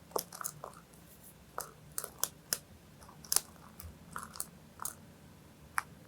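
A cockatiel nibbling with its beak while preening, giving a string of about fifteen irregular, sharp little clicks and crunches.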